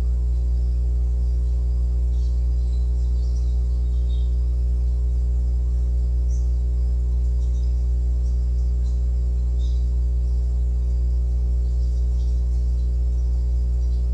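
Steady, loud electrical hum: a low drone with many evenly spaced overtones, unchanging throughout, with faint scattered high chirps above it.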